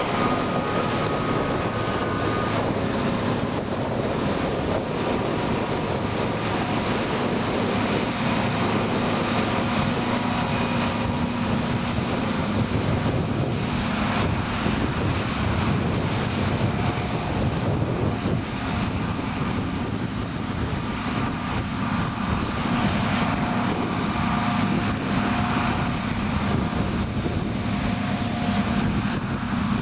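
John Deere 7950 self-propelled forage harvester running steadily while chopping maize, a constant machine drone with faint whines over it.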